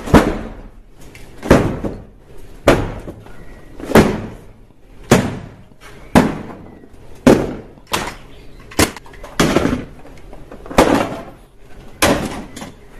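About a dozen heavy thuds, roughly one a second, each sudden and dying away within half a second, as boxed toy blasters and toy guns are laid down on a table one after another.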